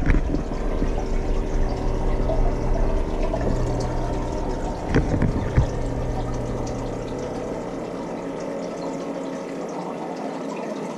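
Aquarium pump and water running steadily, with a low hum and two short knocks about five seconds in.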